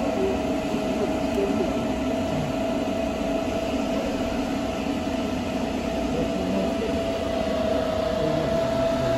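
40 kW air-cooled induction heating machine running while it heats a coupling: a steady whine at one fixed pitch over the even whirr of its cooling.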